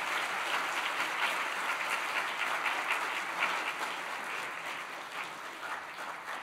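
An audience applauding: dense, sustained clapping from many hands, slowly thinning out near the end.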